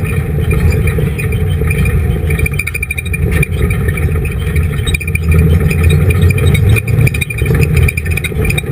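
Dirt-track race car's engine running hard at racing speed, heard up close from a camera on the car itself, loud and continuous, dipping briefly a couple of times and swelling again, with a few knocks and rattles from the car.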